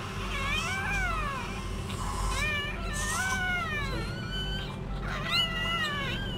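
Newborn puppies crying: several high, mewing cries that rise and fall, each up to about a second long.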